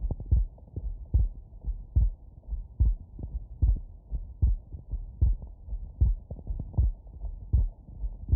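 Human heartbeat picked up through a wireless electronic stethoscope: regular paired lub-dub beats, a little over one per second, presented as an abnormal heart sound. The sound is cut off above a fairly low pitch, and a faint steady rush runs between the beats.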